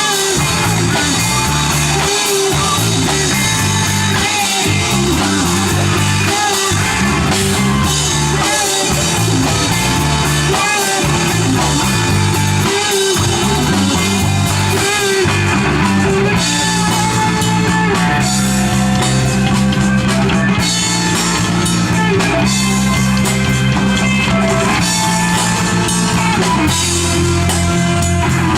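Live rock band playing a song, with electric guitar, bass and drum kit.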